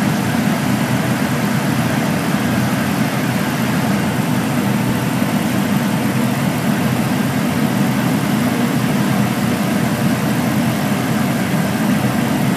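John Deere S670 combine harvester running steadily while picking corn, a loud even machine drone that never changes.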